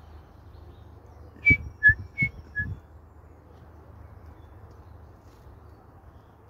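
A person whistles four short notes, alternating high and low, to call a wild great tit in to the hand.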